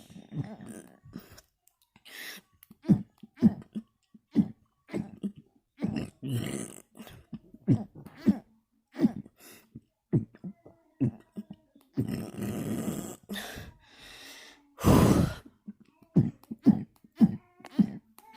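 A person burping over and over with the mouth closed: short burps in quick succession, about one to two a second, with a longer, noisier one about twelve seconds in and the loudest burp about fifteen seconds in.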